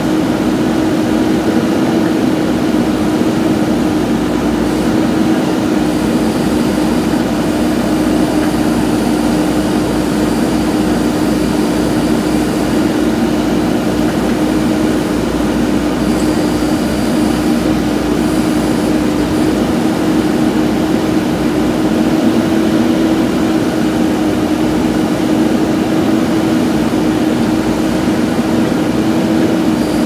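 JCB backhoe loader's diesel engine running at steady revs with an even, unchanging hum while the machine digs.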